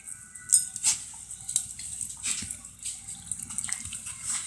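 A dog chewing and licking Pop Rocks candy: irregular wet clicks and crackles, several a second.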